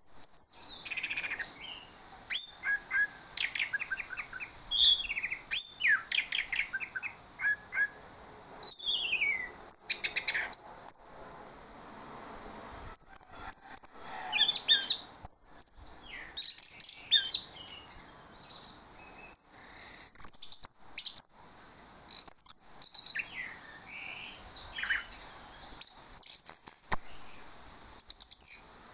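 Orange-headed thrush (anis merah) singing a varied, high-pitched song of rapid chirps, quick note series and sweeping whistles, in bursts with short pauses. The song is laced with imitations of other birds' calls.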